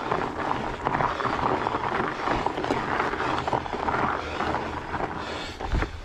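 Fat-bike tyres (4.8-inch) crunching over loose dirt and gravel on a slow, hard uphill climb, with the rider's laboured breathing in pulses about once a second. A low thump near the end as the climb stalls.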